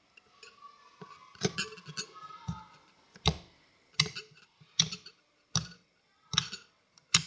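Very sticky slime being squeezed and pulled in the hands, giving sharp sticky pops and clicks about once a second.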